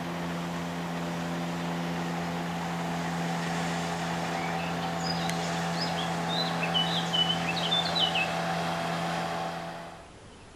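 A steady engine hum holding one even pitch, with small birds chirping over it in the middle. The hum stops suddenly a little before the end.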